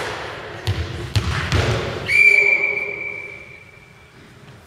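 A ball bounces hard on the sports hall floor three times. About two seconds in, a referee's whistle gives one long steady blast that fades out in the hall's echo, the usual signal to serve.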